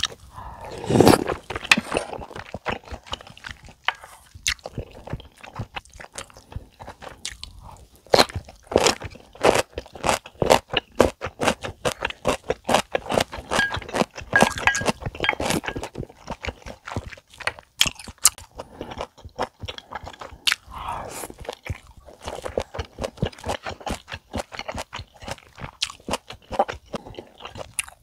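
Close-miked chewing of rice cake soup with dumplings, wet mouth sounds, with many sharp clicks of a wooden spoon against a glass bowl.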